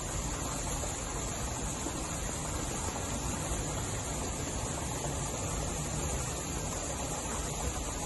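Steady rushing noise with a constant high hiss, unchanging throughout, with no distinct scrapes or knocks standing out.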